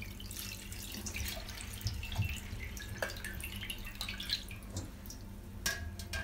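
Water draining and dripping from a tilted stainless-steel strainer of soaked, sprouted moong beans into a steel bowl below. Near the end comes a sharp knock as the strainer is set back down into the bowl.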